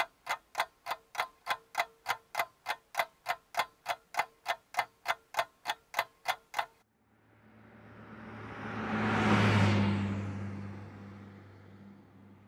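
Clock ticking, about four ticks a second, cutting off suddenly about seven seconds in. Then a rushing sound with a low hum swells and fades over several seconds.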